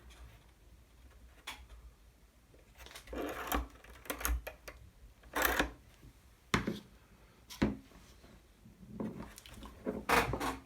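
Scattered clicks, taps and short scrapes of small tools and tacks being handled while a curved wooden capping strip is glued and pinned onto a wooden model ship.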